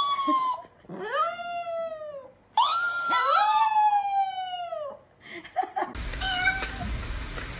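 Chihuahua howling: several long howls that rise and then slide down in pitch, two overlapping about three seconds in. Near the end the howling stops and a noisier background with a few faint tones takes over.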